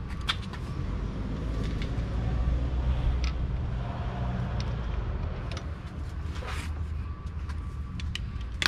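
Low rumble of a road vehicle, swelling about two to three seconds in. Scattered light clicks and knocks come from hands handling parts in a car's engine bay, with one sharper click near the end.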